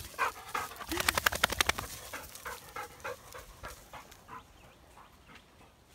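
A Dogo Argentino panting, a fast run of short breaths about a second in, then softer, more scattered breaths.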